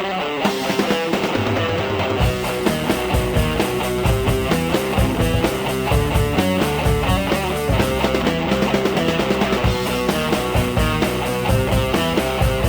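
Background rock music with guitar and a steady beat; bass and drums come in about two seconds in.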